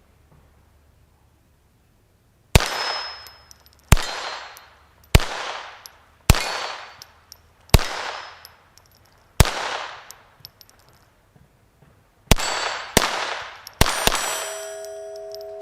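A string of .22LR pistol shots from a Star Model F, ten in all, each a sharp crack ringing out for about a second. They come at an even pace at first, then after a pause four more follow in quicker succession near the end.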